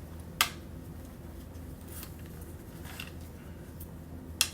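Two sharp clicks about four seconds apart, with a couple of faint ticks between: .45 ACP cartridges being pressed into a KCI 40-round drum magazine. The magazine's sides are busting open as it is loaded.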